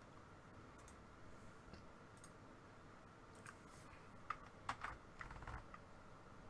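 Near-silent room tone with a short flurry of faint clicks and taps on a computer keyboard about four to five and a half seconds in.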